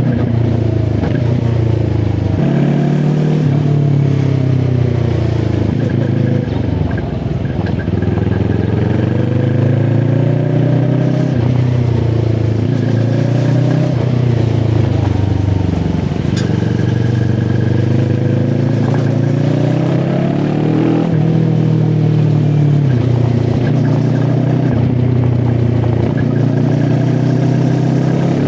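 QJ SRT 450 RX motorcycle engine under way, pulling up through the revs and dropping back again and again as it shifts gears, with a brief easing off about seven seconds in.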